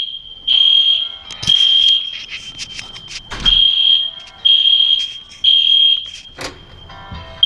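Building fire alarm sounding a loud, high-pitched beeping tone in the temporal-three evacuation pattern: three half-second beeps, a pause of about a second and a half, then three more. A few short knocks and rustles fall in the gaps between the beeps.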